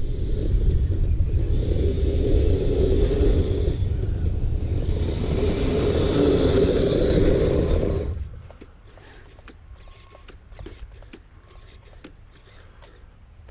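Kyosho Blizzard radio-controlled snow vehicle running loudly with a wavering motor pitch, then cutting out about eight seconds in. After that only scattered faint clicks and ticks are left.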